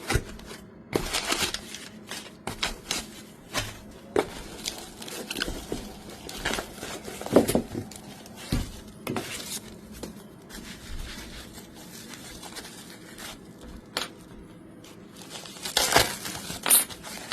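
A package being opened and unpacked by hand: irregular rustling and tearing of packaging, with scattered light clinks and knocks of parts being handled, and a louder flurry near the end.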